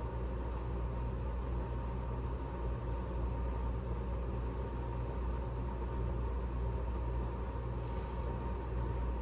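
Steady low hum and rumble with a faint constant tone above it, and a brief soft hiss about eight seconds in.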